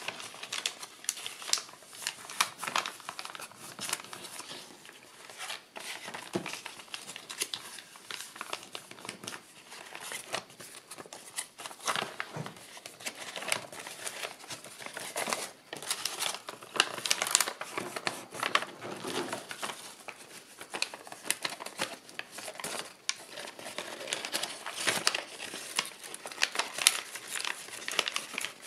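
Kraft paper and paperboard rustling and crinkling as they are folded and creased by hand, with many small, irregular crackles and taps.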